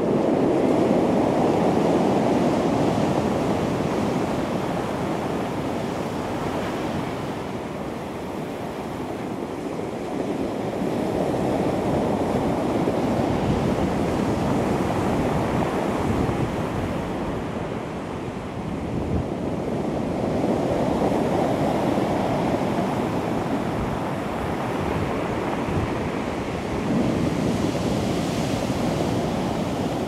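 Ocean surf breaking and washing up a cobble beach. A steady rushing roar swells and eases as each wave comes in, four times over.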